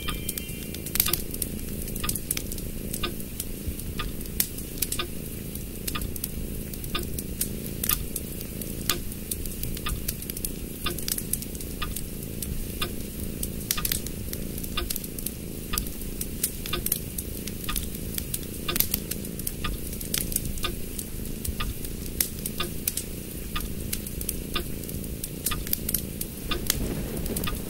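A sheet of origami paper being folded and creased by hand, with frequent irregular crisp clicks and crackles of paper over a steady low background noise.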